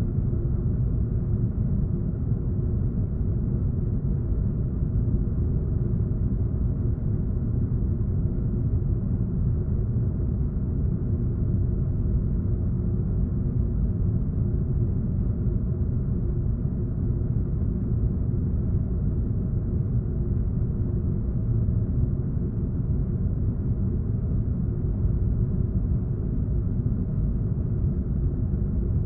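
Air vent with a steady, deep bass rumble and a faint hum, unchanging throughout.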